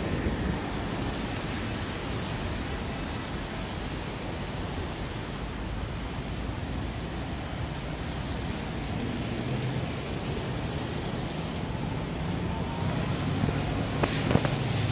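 Street traffic on rain-wet pavement: a steady wash of tyre hiss and engine hum from passing cars, louder near the end as a vehicle passes close.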